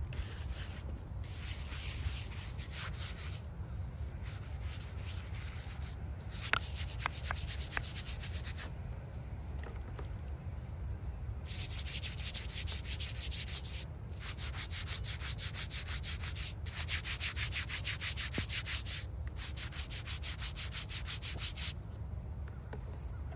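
Hand-held bristle brush scrubbing a stone headstone in fast back-and-forth strokes. The scrubbing comes in several spells, with short pauses between them.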